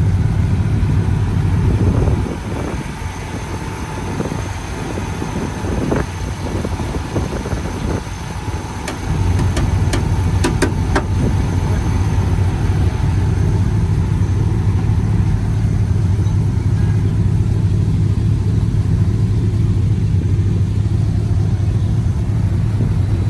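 Pickup truck engine idling steadily, with a few sharp clicks about ten seconds in.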